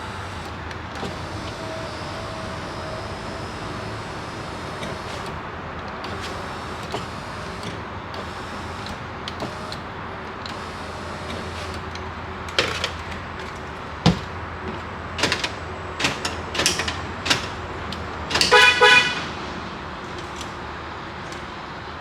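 Scattered sharp clicks and knocks on the Ford F-350 truck, then a short horn toot about three quarters of the way through, like the lock-confirmation chirp when the locks are cycled.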